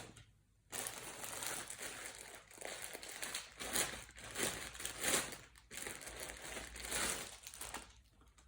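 Packaging crinkling and rustling in uneven surges for about seven seconds as the next garment is taken out of its wrapping.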